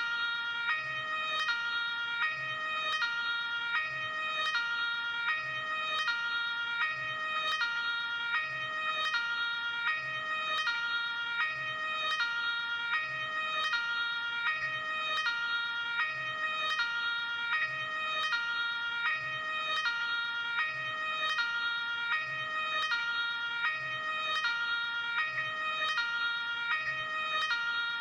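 Luxembourg ambulance two-tone hi-lo siren, switching steadily between a high and a low pitch, each held a little under a second.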